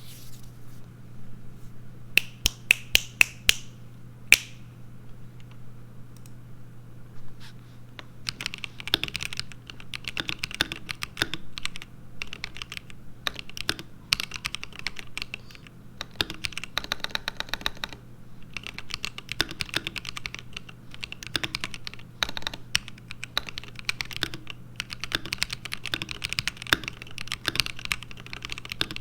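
ROG Azoth mechanical keyboard with stock, pre-lubed ROG NX Linear Red switches being typed on. A handful of separate sharp keystrokes come about two to four seconds in, then fast continuous typing from about eight seconds in, with a very rapid run of presses around seventeen seconds. A faint low hum lies underneath.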